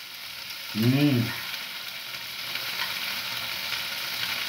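Chunks of liver sizzling in a frying pan, stirred and turned with a metal spoon, with a steady high hiss and light scraping clicks. A short voice sound about a second in.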